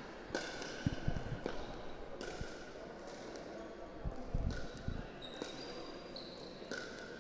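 Plastic pickleball being struck back and forth by paddles in a doubles rally: a run of short, sharp pops at irregular intervals, with a few dull low thuds in between.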